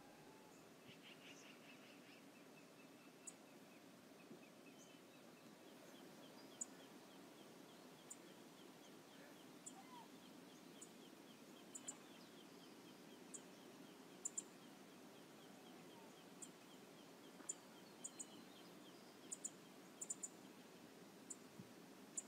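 Faint, steady rush of river water, with short, sharp, high ticks scattered through it that come more often in the second half.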